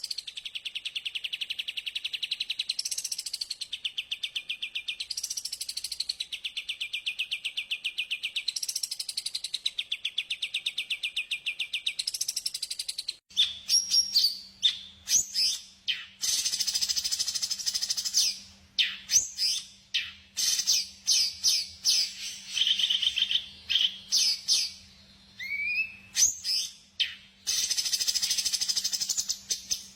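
Recorded birdsong. It opens with a rapid, continuous high trill that rises and falls about every three seconds. About 13 seconds in, it cuts abruptly to a different recording of many sharp, separate chirps and calls over a low steady hum.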